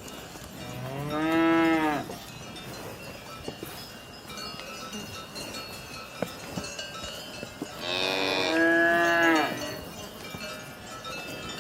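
A cow mooing twice, two long pitched calls several seconds apart, with cowbells ringing faintly in between.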